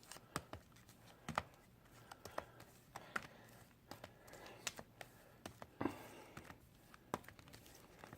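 Hockey card packs and their box being handled: scattered faint clicks, taps and soft crinkles of foil wrappers and cardboard.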